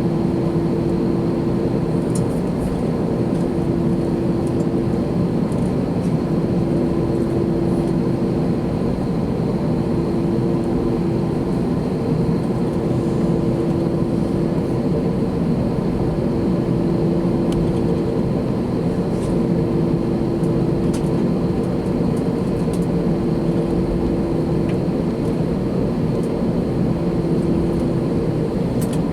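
Cabin noise from an Airbus A321-213 with its CFM56-5B engines running: a steady, dense jet roar. Under it sits a low hum that drops out briefly every couple of seconds.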